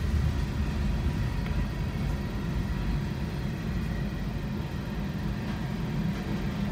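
Freight train of covered hopper cars rolling past a grade crossing: a steady low rumble, heard from inside a car with a few faint wheel clicks.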